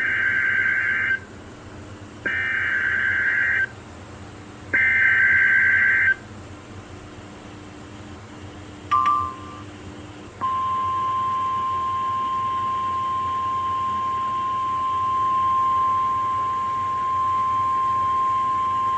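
NOAA Weather Radio Emergency Alert System tones announcing a severe thunderstorm warning. First come three bursts of SAME header data tones, each a rapid two-pitch warble about a second and a half long, with about a second between them. After a brief blip, the steady single-pitch 1050 Hz warning alarm tone begins about ten seconds in and holds.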